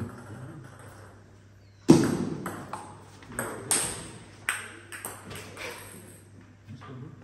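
Table tennis ball being struck back and forth in a rally, about eight sharp clicks of ball on bats and table in under four seconds. The first and loudest stroke comes about two seconds in.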